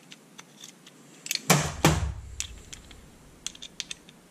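Metal hand tools clacking: two sharp knocks about a second and a half in as open-end spanners work a tightly done-up nut on a moped fuel tap, with lighter clicks around them.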